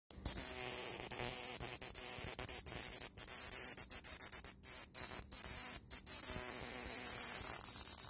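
Cicada held between the fingers giving its distress buzz. The high-pitched buzz keeps breaking off abruptly and starting again at uneven intervals, a stuttering rhythm like beatboxing.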